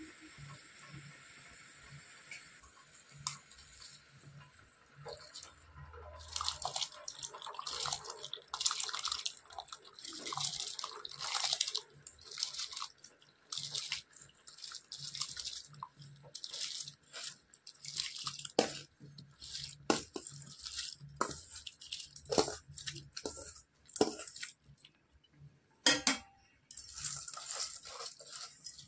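Rice being tipped from a steel bowl into a steel pot of boiling water: irregular splashing and pouring, with sharp knocks of the steel bowl against the pot, the loudest near the end. The first few seconds hold only the faint hiss of the boiling water.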